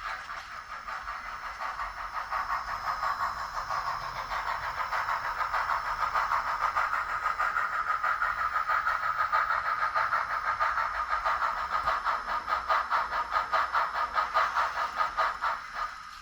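HOn3 model locomotive running along the track under power, a steady whine with a fast, even pulsing that builds in loudness over the first few seconds and stops abruptly near the end.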